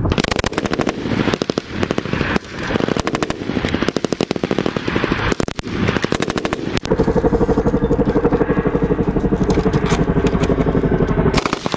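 M249 light machine guns firing automatic bursts: several short, rapid bursts in the first half, then a long unbroken stretch of rapid fire from about seven seconds in that stops shortly before the end.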